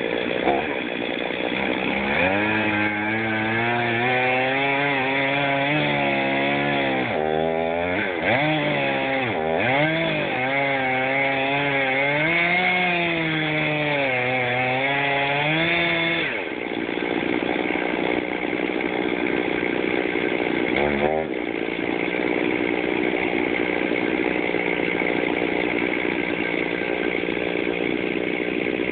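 Two-stroke Stihl chainsaw cutting into a maple trunk. Its engine pitch wavers and dips repeatedly as the chain bites into the wood, then it runs at a steadier pitch from about halfway.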